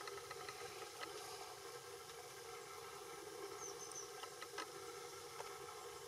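Faint, sparse taps of a great spotted woodpecker pecking peanuts through a wire-mesh feeder, over a quiet steady hum.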